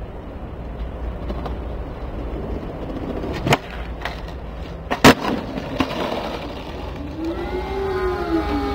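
Skateboard wheels rolling with a steady rumble, broken by two sharp board cracks about three and a half and five seconds in, the second the loudest, and a smaller knock just after. Near the end a wavering pitched sound comes in over the rolling.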